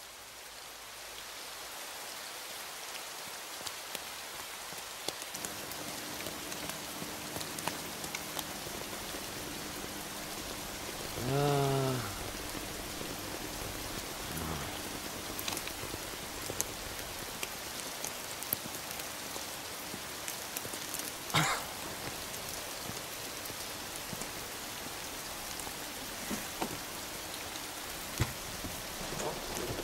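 Steady rain falling, with scattered drips and clicks. A brief wavering pitched call sounds about eleven seconds in.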